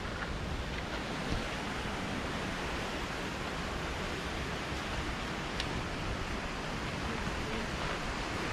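Steady rushing outdoor noise with no distinct source, even across low and high pitches, with a couple of faint clicks.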